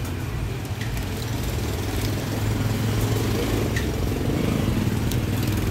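Street traffic: a motor vehicle's engine running close by as a steady low rumble that grows a little louder about two seconds in, with a few faint light ticks over it.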